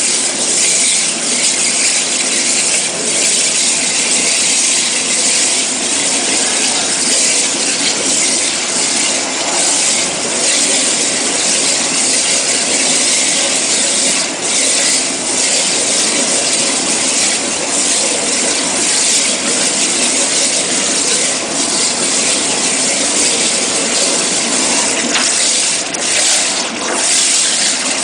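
CNC waterjet cutting machine's high-pressure jet cutting through material, a loud, steady hiss.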